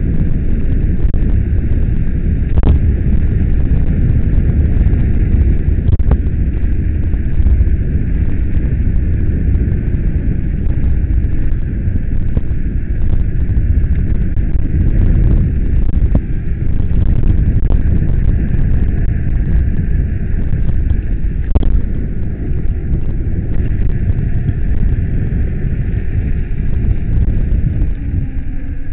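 Wind buffeting the microphone of a handlebar-mounted camera on a bicycle rolling downhill: a loud, steady low rumble, broken by a few sharp knocks.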